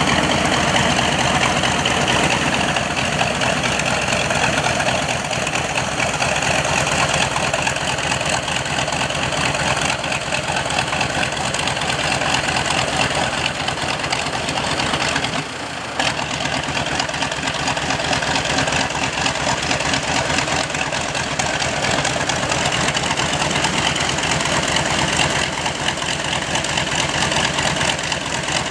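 Piper J-3 Cub's small piston engine droning steadily as the light plane flies overhead, broken by a brief dip about halfway through.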